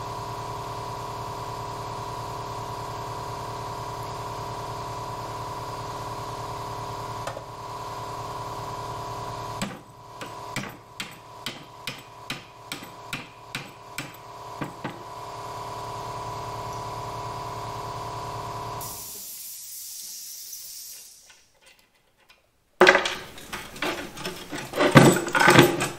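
Hammer striking a steel front control arm held in a vise, knocking out the old rubber bushing: about a dozen sharp metal blows at roughly two a second, then after a short gap a louder, faster run of blows near the end. A steady hum runs under the first part and stops before the gap.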